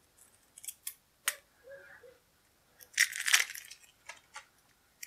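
Wrapper on a sealed stack of game cards being handled and torn open: a few sharp clicks, then a burst of crinkling about three seconds in.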